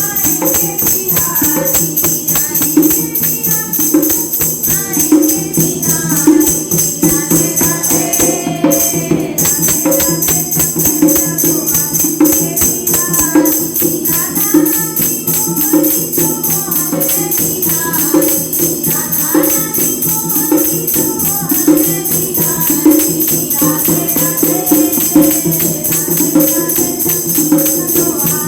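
Women singing a Krishna bhajan, with percussion keeping a steady beat.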